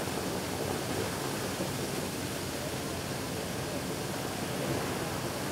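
Water gushing steadily from a sheared fire hydrant, a continuous rushing spray of water shooting up and falling back onto the pavement.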